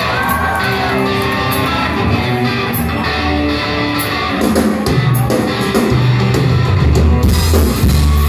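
Live rock band playing loudly: electric guitar over bass and drum kit, with cymbal hits coming thicker and the low end heavier in the second half.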